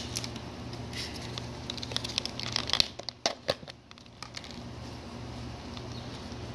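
Thin plastic deli-cup lid being pried and pulled off a snake cup: crinkling plastic and sharp clicks, loudest about three seconds in, then quieter handling of the cup. A low steady hum runs underneath.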